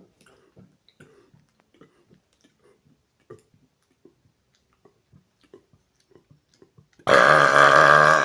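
Faint gulps and small mouth clicks, then about seven seconds in a man lets out one long, loud, pitched burp lasting over a second, forced out for as much volume as he can make.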